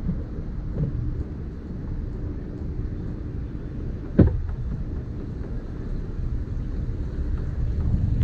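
Low rumble of wind buffeting the microphone and road noise as a skiff rides on its trailer behind a towing vehicle, with one sharp knock about four seconds in.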